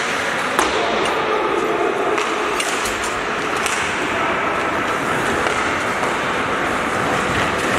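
Ice hockey play on a rink: skate blades scraping the ice under a steady hall din with indistinct voices, and a few sharp clacks of sticks hitting the puck, one just after the start and several near the middle.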